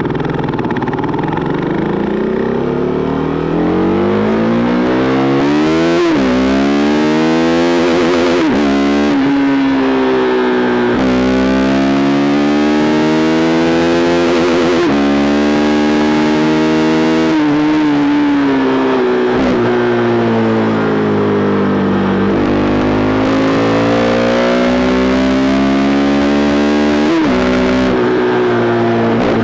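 KTM RC 390's single-cylinder engine through a replica SC Project aftermarket exhaust, riding through the gears. The revs climb and drop sharply at upshifts about 6 and 9 seconds in, then run fairly steady. They fall away as the bike slows, and climb again with another shift near the end.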